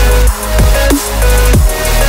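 Electronic drum-and-bass style background music, with a heavy bass, falling synth glides and a steady beat.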